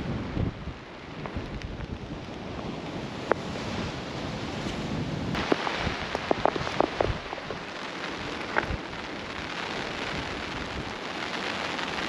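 Wind and rain on an outdoor microphone: a steady rushing hiss with a rumbling low end, broken by scattered sharp taps, most of them clustered around the middle.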